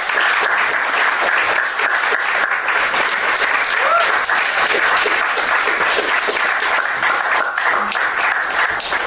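Live audience applauding, a dense steady clapping that carries on for about nine seconds.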